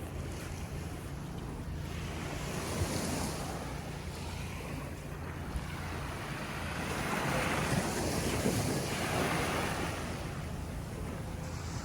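Ocean surf washing onto the beach, swelling louder about seven seconds in and easing off again, with wind rumbling on the microphone.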